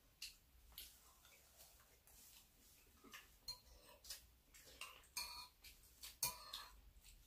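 Metal spoons clinking and scraping against ceramic bowls of porridge: scattered light taps, with two brighter ringing clinks about five and six seconds in.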